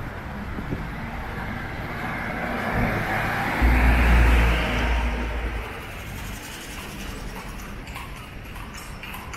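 A motor vehicle passing close by on a city street: its noise swells to a peak about four seconds in, with a deep low end, then fades over the next two seconds, leaving steady street noise.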